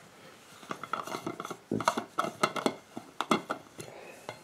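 Lid of a Thermos 24 oz stainless steel vacuum food jar being unscrewed and lifted off: an irregular run of metal clinks and scrapes, some with a brief ring.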